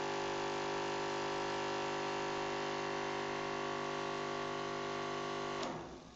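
24-volt DC electric motor driving the backhoe's hydraulic pump, running at a steady pitch, fairly loud. About five and a half seconds in it is switched off with a click and spins down.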